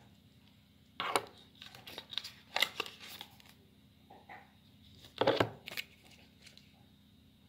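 Smartwatch packaging being unwrapped and handled: the plastic sleeve and paper packing rustling in a run of short bursts from about a second in, then another loud burst about five seconds in.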